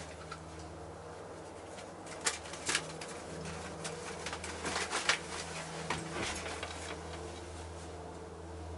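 A steady low hum with a scatter of sharp clicks and taps, most of them between about two and seven seconds in.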